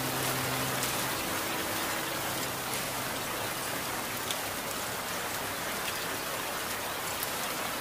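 Steady rain, an even hiss with scattered drop ticks. The last low held notes of a song die away in the first two seconds or so.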